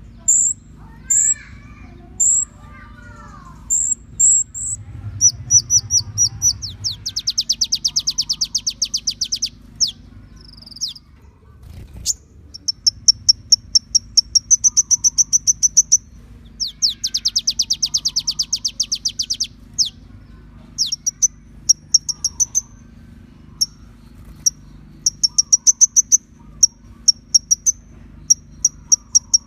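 Olive-backed sunbird (kolibri ninja) song on a bird-training master track: sharp high chips and long, very fast high-pitched trills in phrases a few seconds long, over a faint steady low hum.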